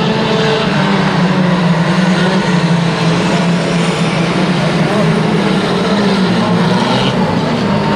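Engines of several small banger-racing hatchbacks running together in a pack as they race around a shale oval. The engine noise is loud and steady.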